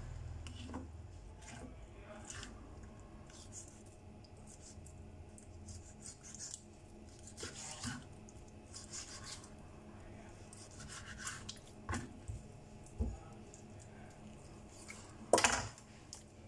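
Kitchen knife scraping and tapping on a wooden cutting board while trimming raw chicken breast, in scattered short strokes. Near the end comes a sharper, louder knock as the knife is set down on the board.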